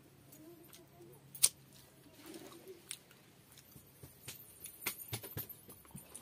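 Eating by hand: fingers scooping watery fermented rice from a steel bowl, with wet mouth and chewing sounds. Scattered sharp clicks and smacks run through it, the loudest about a second and a half in, and a cluster comes near the end as the rice goes to the mouth.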